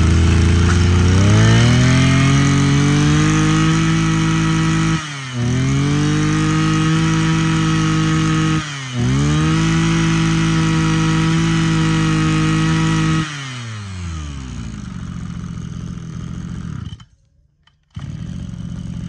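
Mitsubishi TL261 26cc two-stroke brush cutter engine revved up to full throttle and held there, dipping briefly twice as the throttle is let off and opened again. About thirteen seconds in it is throttled back and settles to idle, with a short break near the end.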